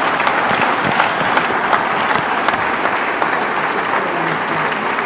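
Audience applauding steadily, a dense even clatter of many hands with single claps standing out here and there.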